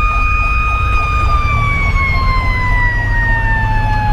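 Federal Q2B mechanical siren holding a steady wail, then winding down in pitch from about a second in, over a fast warbling electronic siren yelp, about four cycles a second. Beneath both runs the rumble of the fire engine's Detroit Series 60 diesel, heard from inside the cab.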